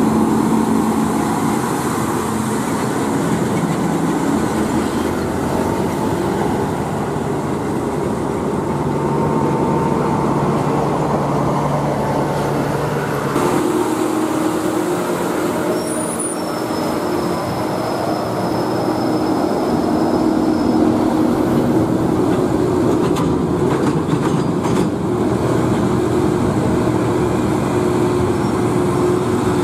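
Heavy diesel truck engines pulling under load up an incline: first a Mitsubishi Fuso Super Great, then, after an abrupt change about halfway through, a Hino Jumbo Ranger FL and a Hino Ranger FM 320TI climbing in line.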